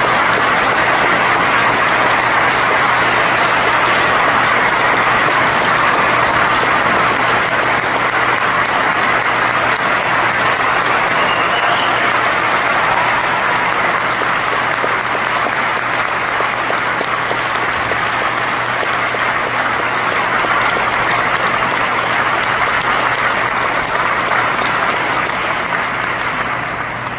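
A large audience applauding steadily, a dense wash of many hands clapping that eases off slightly near the end.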